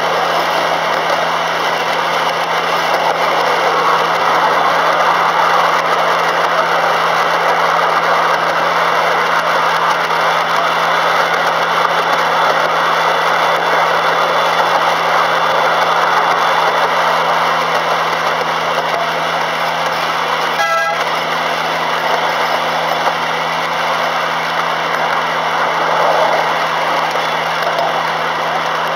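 Miniature railway train running steadily along its track, a continuous drone of the locomotive and wheels heard from aboard. About two-thirds of the way through comes one short horn toot.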